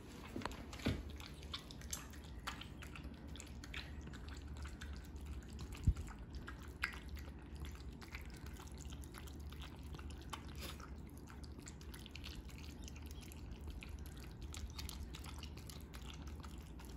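Small dog eating wet home-cooked food from a ceramic bowl: faint, irregular wet smacking and lapping clicks. There is a dull thump about six seconds in.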